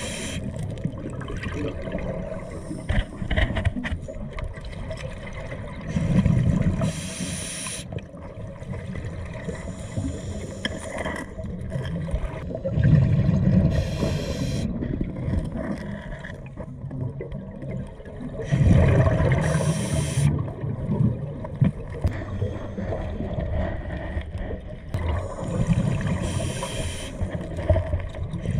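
Scuba diver breathing through a regulator underwater: bubbly exhalations and hissing breaths come round about every six to seven seconds over a muffled underwater background.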